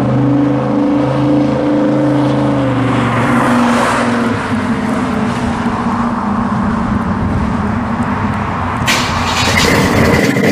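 1966 Chevy II Nova pro street car's engine running as the car drives past, a steady pitched rumble that drops lower about three seconds in and thins into road noise as it moves away. Near the end, a sudden hiss with a steady high tone cuts in.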